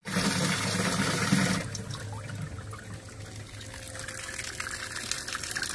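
Water pouring and splashing into a boat's livewell tub during a fill test, with a low hum under it. The hum and the louder water fall away about a second and a half in, leaving a quieter running trickle.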